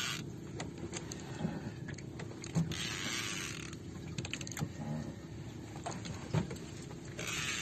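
Fishing reel being cranked under load while a large fish pulls on a bent rod: mechanical whirring with sharp clicks, and two brief rushes of higher-pitched noise, about three seconds in and near the end.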